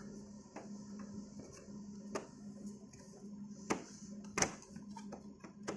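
Scattered plastic clicks and knocks of an all-in-one PC's rear cover being unhooked and slid off, a handful spread over several seconds, the loudest a little past the middle, over a steady low hum.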